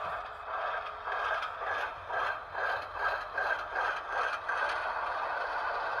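Athearn HO-scale GE ES44AC model locomotive's Tsunami2 sound decoder playing its diesel start-up sequence through the model's small speaker: rhythmic chugging about three times a second that settles into a steady engine sound about five seconds in.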